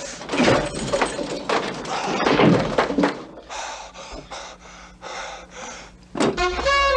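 A man panting heavily in quick, repeated breaths. Near the end comes a sharp thump, and music starts right after it.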